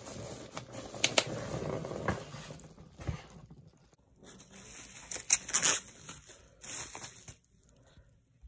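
Plastic bubble wrap crinkling and rustling as it is handled and unwrapped, with a few sharp crackles; it falls quiet for about the last second.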